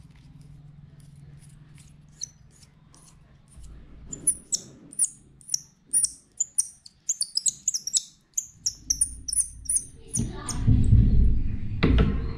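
A small bird chirping: a quick run of short, high chirps lasting about five seconds. Near the end come louder low rumbling and a few knocks of handling noise.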